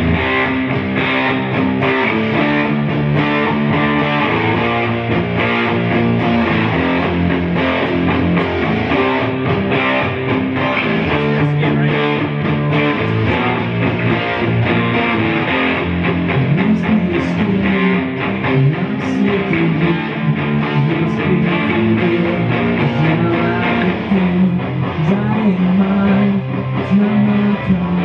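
Electric guitar played through an amplifier: strummed chords that change every second or two.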